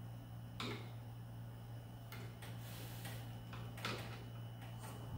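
A few light, scattered clicks and knocks of grand-piano hammers and action parts being handled during felt ironing, over a steady low hum.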